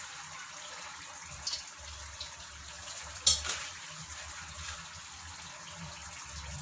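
Chicken and onions frying gently in oil in a pan, a steady soft sizzle, with a few sharp utensil clicks, the loudest about three seconds in.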